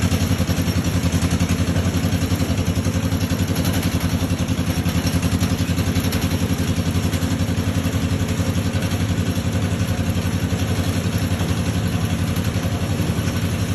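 Engine of a portable ice-crushing machine running steadily with a fast, even throb.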